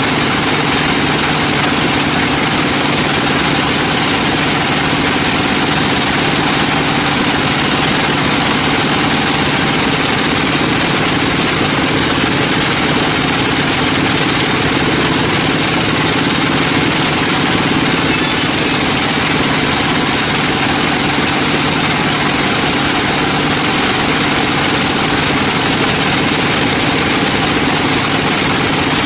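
Sawmill machinery running steadily: a constant engine drone with a hiss over it, unchanged throughout.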